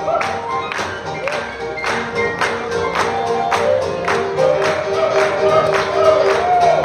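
Live swing band playing an up-tempo tune with a steady beat of about two strokes a second, with sustained, sliding horn-like lines over it; the band has an upright bass, a horn and drums.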